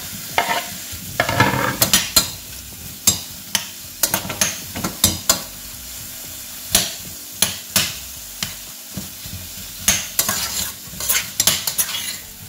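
Chopped apple and banana sizzling in hot coconut oil in a stainless-steel pot while a metal spoon stirs them, clinking and scraping against the pot many times at an uneven pace.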